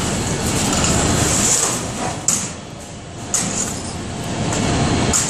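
Steady rushing noise from the open firebox of an industrial biomass boiler burning wood offcuts. In the second half come three sharp knocks as a long poker pushes wood scraps into the firebox.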